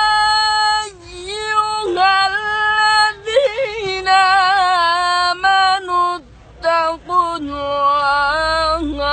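A single male voice reciting the Quran in melodic tajwid style, holding long notes with ornamented turns. It breaks off briefly twice in the second half.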